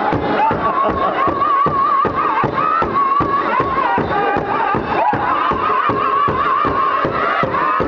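Powwow drum group: several men striking one large hide-headed drum together in a steady, fast beat while singing a high-pitched, wavering powwow song.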